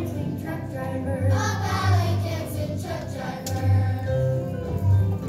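A group of young children singing together along to a recorded song with a steady, heavy bass line.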